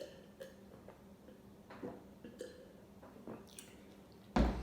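Close-miked eating: scattered small wet mouth smacks and clicks while chewing, then a loud, deep thump near the end.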